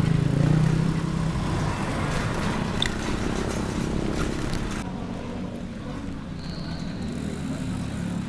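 Road traffic noise heard from a bicycle on a city street, with a passing motor vehicle's low engine drone at the start and a few light clicks. About halfway through the sound drops to a quieter outdoor background, and a steady high insect trill sets in near the end.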